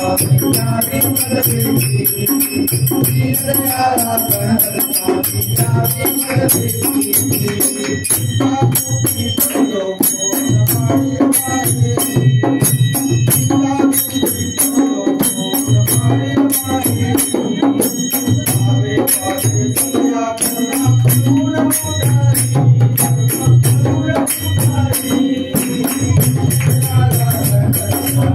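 Group devotional singing of a Marathi Ganpati bhajan, led by a man singing into a microphone, with the congregation clapping and small brass hand cymbals (taal) keeping a steady beat.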